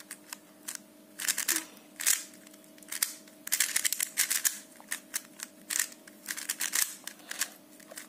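A YJ Yulong magnetic 3x3 speedcube being turned quickly by hand during a solve: flurries of rapid plastic clicking and clacking as the layers turn, with short pauses between them.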